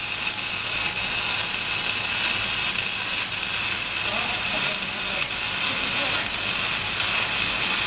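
Electric arc welding: the arc gives a steady crackling hiss that does not let up.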